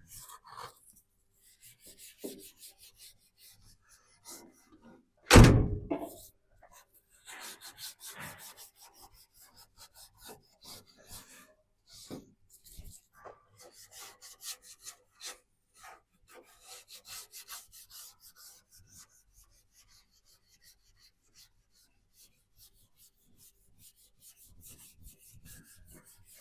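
Hand rubbing down the primer on a van's body panel with an abrasive pad, in runs of quick scratchy strokes with pauses between. One loud thump comes about five seconds in.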